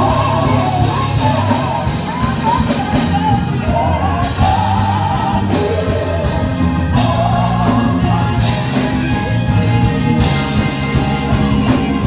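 Gospel music: a singer's voice sliding through wavering, ornamented runs over a full band with bass and occasional cymbal crashes.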